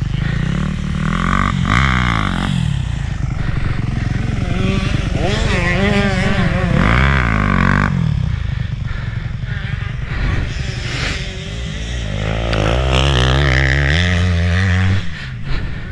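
Motocross bikes revving past on the track one after another, their engine notes rising and falling as they go by.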